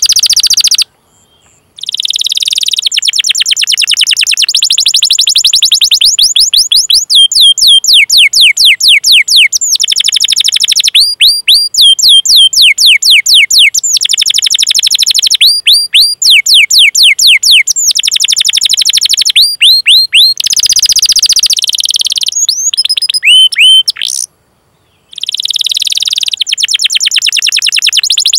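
Domestic canary singing: long rolling trills of fast repeated high chirps, the note shape changing every few seconds, with two brief breaks, one about a second in and one near the end.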